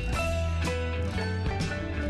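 Background music with a steady beat, about two strokes a second, over a held bass line.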